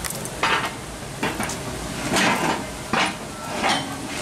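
Footsteps scuffing on a concrete patio at a walking pace, about one step every 0.8 seconds.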